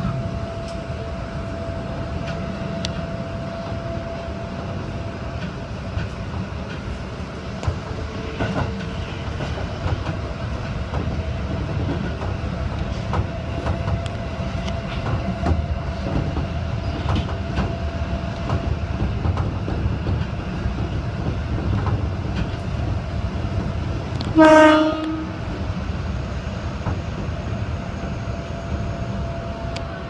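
Electric commuter train running along the track, heard from inside the driver's cab: a steady low rumble with wheel clicks over the rail joints. About three-quarters of the way through comes one short blast of a train horn, the loudest sound.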